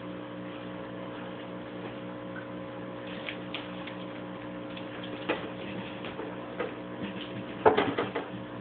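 A steady hum with a regular ticking pulse of about four a second, with scattered clicks and a short burst of louder clicks and scuffs near the end as dogs move on a tile floor.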